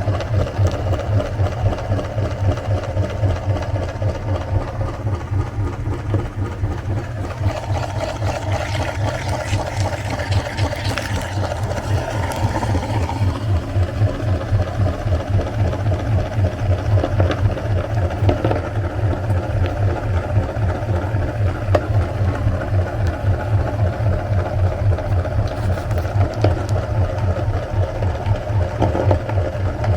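Electric meat grinder running steadily with a fast-pulsing motor hum while it grinds ice cream, with a noisier, hissier stretch about a third of the way through.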